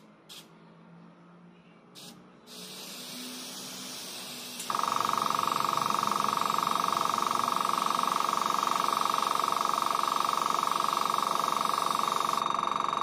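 A few light clicks, then air hissing from a marker-pen airbrush, and about five seconds in the HSENG AS18TB 1/6 HP airbrush compressor's motor starts and runs steadily with a fast, even pulsing hum, the loudest sound, while the hiss goes on. The motor cuts in as the air is drawn from the tank.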